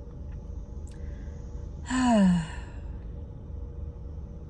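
A woman's sigh: one breathy voiced exhale about two seconds in, falling in pitch, over a steady low hum.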